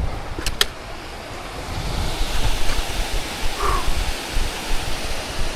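Wind gusting on the microphone, with a rushing hiss that grows louder about two seconds in, and a few sharp clicks near the start.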